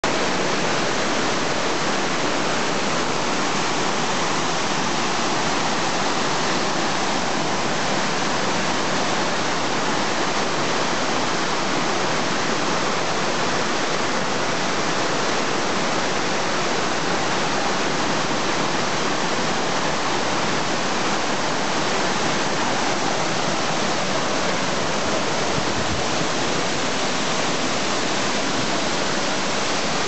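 Boyana Waterfall, a mountain waterfall pouring onto rocks: a steady, even rush of falling water that does not change.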